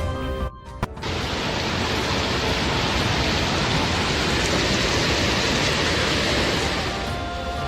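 A steady, even rushing noise sets in about a second in, after a brief drop and a single click, and eases slightly near the end.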